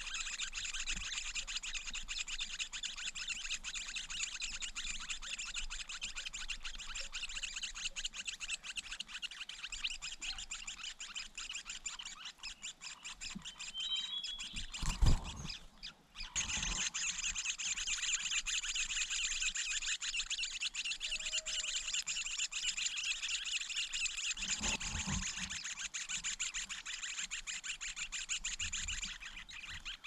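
A steady high-pitched buzzing drone with a few short high bird chirps, broken about halfway by some soft thumps and a brief loud knock.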